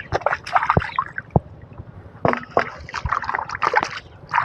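Water splashing and sloshing in short irregular bursts, with quieter gaps between.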